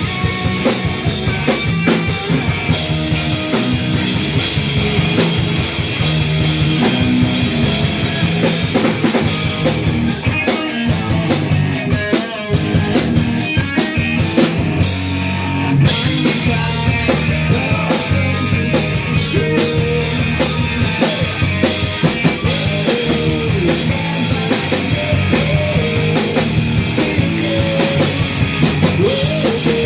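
Live punk rock band playing loud, with a full drum kit, distorted electric guitars and bass.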